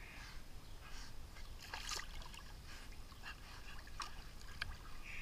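Pool water softly lapping and trickling around dogs wading in it, with small drips and a slightly louder splash about two seconds in.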